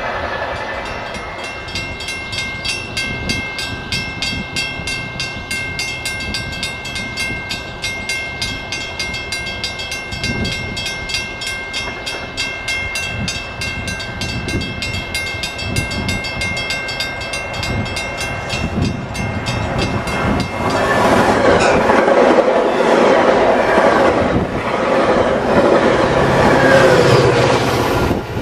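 Metra commuter train approaching on diesel power. A rapid, steady ringing from a grade-crossing bell comes first. From about two-thirds in, the train horn sounds and the locomotive and cars grow loud as they reach and run past.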